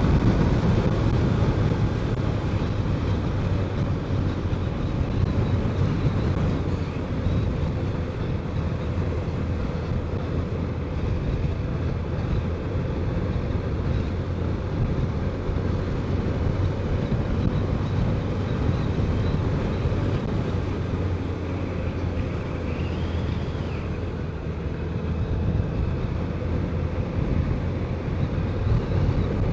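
BMW K1200 inline-four motorcycle engine running steadily under way, with wind rushing over the microphone.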